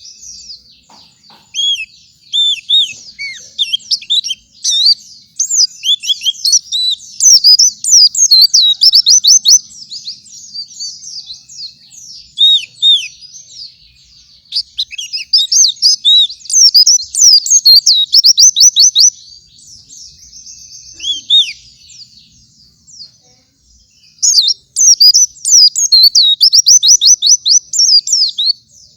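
White-eye (pleci) singing a long, rapid, high-pitched twittering song in repeated bursts, dropping away briefly about three-quarters of the way through before starting again.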